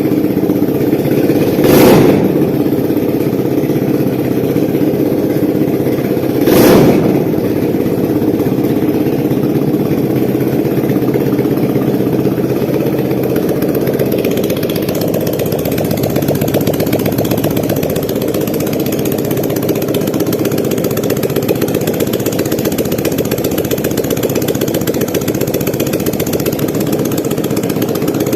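BMW R1150R Rockster's air/oil-cooled boxer twin idling, with two short throttle blips in the first seven seconds before it settles back to a steady idle.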